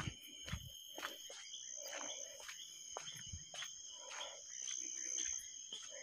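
Crickets trilling steadily at night, with footsteps scuffing on a dirt road about every half second.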